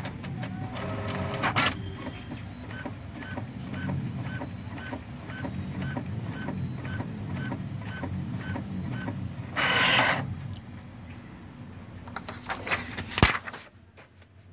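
Brother DCP-T700W inkjet printer printing a test page: its mechanism runs with a steady low rumble and an even ticking about twice a second. A loud rushing burst comes about ten seconds in, followed by a few clicks and a sharp knock near the end.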